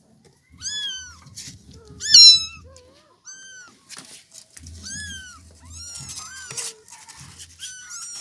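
Domestic kittens mewing: about six high, thin calls, each rising then falling, roughly one every second and a half, the loudest about two seconds in.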